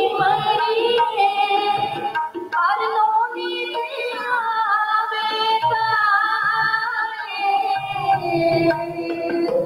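Women singing a Sikh devotional hymn (kirtan) to a harmonium, whose held notes sound under the wavering melody.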